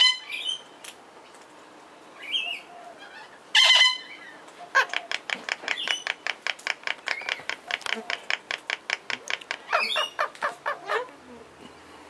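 Princess parrots calling: a loud call at the start and another about four seconds in, then a rapid, even run of short chattering notes, about four or five a second, lasting some six seconds. The chattering comes as the male feeds the female beak to beak during courtship.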